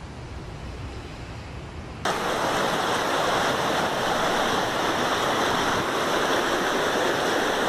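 Muddy floodwater rushing through a street, a loud steady rush of water that starts suddenly about two seconds in. Before it, a quieter low rumble.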